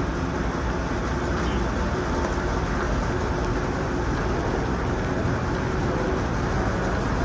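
Steady low rumble of running vintage car engines.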